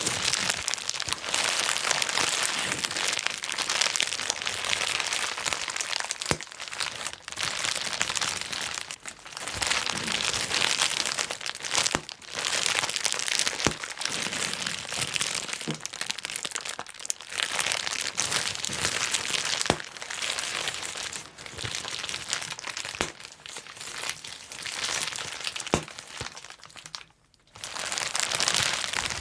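Plastic bubble wrap being handled and popped: steady crinkling of the plastic with sharp single pops scattered through it, and a brief lull near the end.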